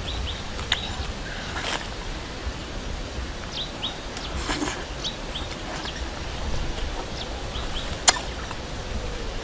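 Small birds chirping in short, quick falling notes, over rustling of leafy branches as fruit is picked by hand; one sharp snap about eight seconds in.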